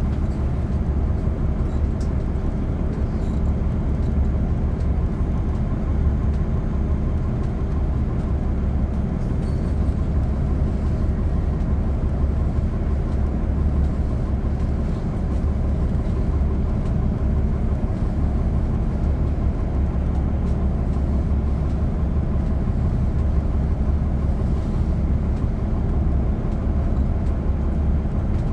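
Inside a 2010 NABI 40-SFW transit bus, its Cummins ISL9 straight-six diesel engine runs with a steady, deep drone and no change in pitch, with faint light rattles above it.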